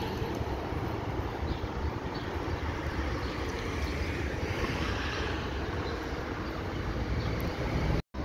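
Steady city traffic noise with the low rumble of a Berlin U-Bahn train approaching along the open U2 ramp. The sound cuts out for a moment near the end.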